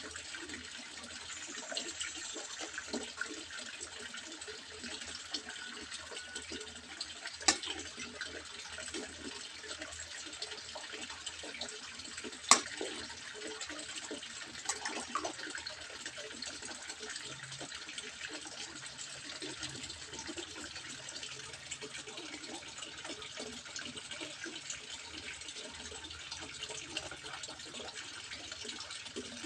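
Water steadily trickling and splashing into a fish pond. Two sharp clicks stand out about five seconds apart, the second louder.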